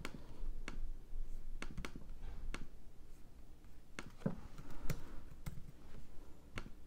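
Irregular clicks of a computer mouse and keyboard keys as a price is typed into a web form, with a low knock a little after four seconds in.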